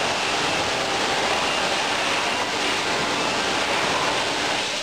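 Steady factory-hall background noise: an even hiss with a few faint, steady high tones.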